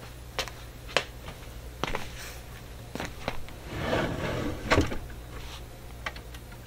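The record-changer drawer of a wooden console cabinet being handled and pulled open: scattered clicks and knocks, then a sliding rumble about four seconds in that ends in a sharp knock. A steady low hum runs underneath.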